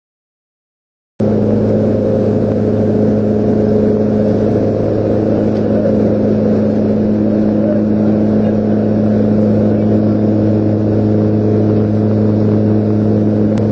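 Twin turboprop engines of a Short Skyvan droning steadily, heard inside the cabin, mixed with wind rushing through the open rear door. The sound cuts in about a second in, after a moment of dead silence.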